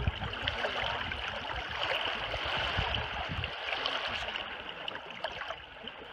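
Small waves lapping and splashing against the lake shore, a steady sloshing with many little splashes that fades toward the end.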